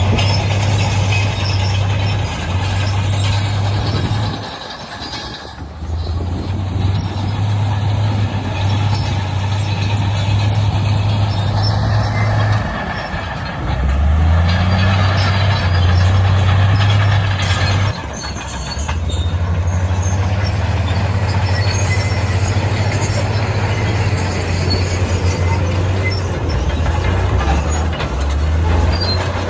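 Heavy diesel engine of earthmoving machinery working under load, a deep steady drone that dips briefly and shifts pitch several times as the throttle or load changes.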